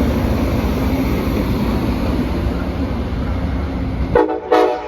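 A train running with a steady loud rumble. About four seconds in, the rumble cuts off abruptly and two short pitched tones sound in quick succession.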